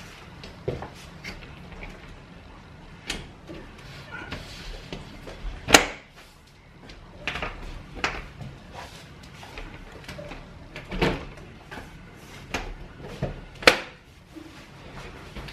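PVC concertina folding door being fitted at its jamb: scattered plastic clicks and knocks as the panels and fittings are handled, with two louder knocks, one about six seconds in and one near the end.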